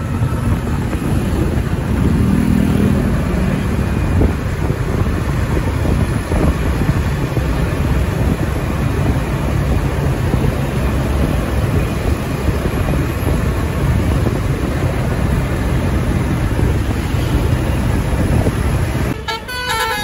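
Coach bus engine and street traffic rumbling steadily as the bus rolls along. Near the end its multi-tone 'telolet basuri' air horn starts playing a quick melody of stepped notes.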